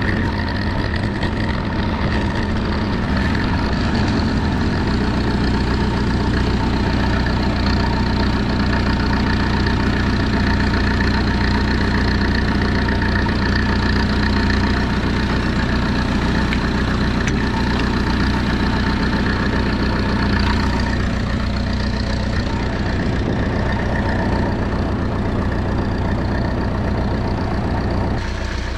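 Tractor engine running steadily, its note changing slightly about twenty seconds in.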